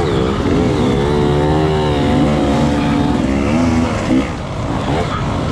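Off-road dirt bike engine under race load, its pitch rising and falling as the throttle is worked on and off, with a brief drop in loudness about four seconds in.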